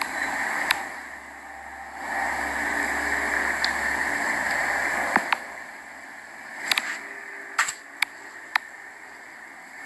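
Steady outdoor background hiss with a low hum that stops about halfway, and a handful of sharp clicks, the loudest two together about halfway, then several more near the end.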